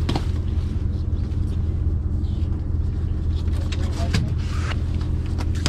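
Party boat's engine running with a steady low drone, with a few sharp clicks from handling on deck over it.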